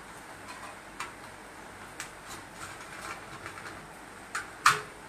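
Knife slicing through a block of paneer and clicking against the stainless steel plate beneath it: a handful of sharp, scattered taps, the loudest near the end.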